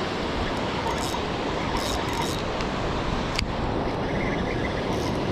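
Steady rush of surf breaking on a sandy beach, with wind, and a single sharp click about three and a half seconds in.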